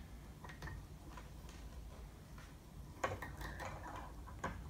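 Faint clicks and light taps of a 3D-printed plastic belt tensioner and rubber GT2 belt being handled, with a cluster of clicks about three seconds in and another click near the end.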